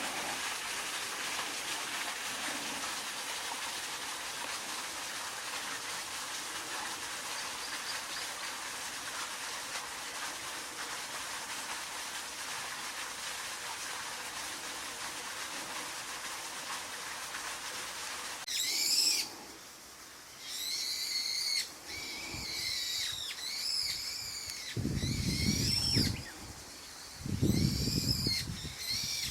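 Steady outdoor hiss, then, from about two-thirds of the way in, a bird calling over and over in short arched notes that rise and fall, about one a second. Two low rumbles come near the end.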